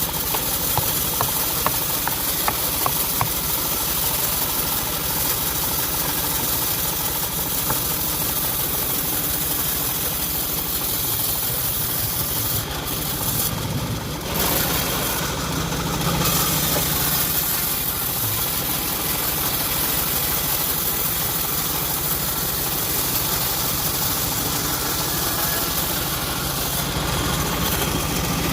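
Engine of a homemade bandsaw sawmill running steadily, with a hiss over the engine note and a brief change about halfway through.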